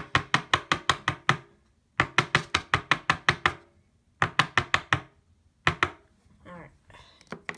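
Quick runs of sharp knocks on a tabletop, about six a second: three bursts of roughly six to ten taps with short pauses between, then two single knocks a little later.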